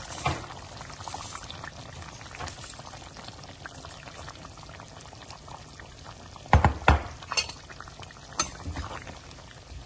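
Raw rice poured into a pressure cooker of simmering chicken liquid, then the liquid bubbling steadily. Two loud knocks come about six and a half seconds in, with lighter ones a moment later.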